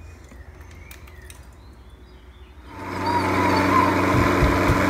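A few faint clicks, then a countertop blender switched on about three seconds in. Its motor runs loud and steady as it blends cheesecake batter of cream cheese, sour cream and eggs.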